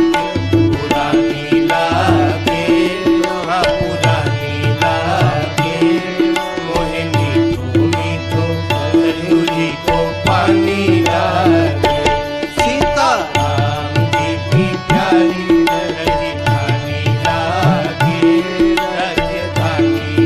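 Instrumental passage of a Hindi devotional bhajan: tabla playing a steady rhythm under a bending melody line.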